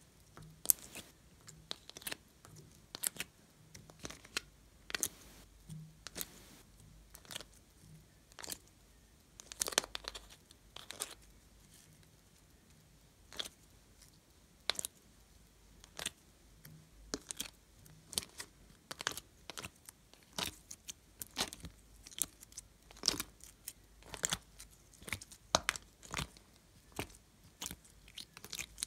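Slime and soft clay handled by fingers: irregular sticky clicks and crackles, about one or two a second.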